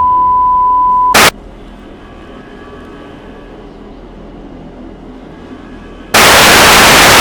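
Simulated emergency radio broadcast breaking up: a loud steady single-pitch tone for about a second, cut off by a short blast of static, then several seconds of much quieter muffled noise, then another long blast of loud static near the end.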